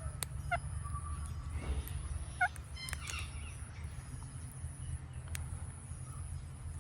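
Indian ringneck parrot giving two short, sharp chirps, one about half a second in and one about two and a half seconds in, over a steady low hum.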